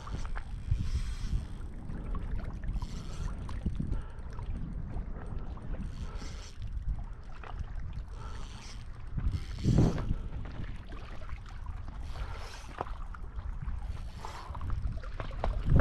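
Wind rumbling on the microphone and water lapping at a small boat, with short spells of a fishing reel being cranked and a loud thump about ten seconds in and another at the end, while a hooked bass is played on an ultralight rod.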